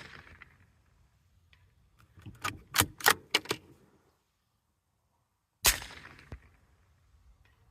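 CZ 455 Tactical .22 LR bolt-action rifle: the ringing tail of one shot at the start, then a quick run of about six sharp metallic clicks as the bolt is worked to eject and chamber a round, then a single loud shot about two seconds later.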